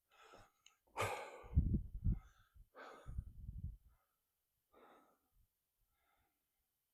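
A hiker breathing hard, with a few loud breaths and sighs in the first four seconds, then it goes almost quiet.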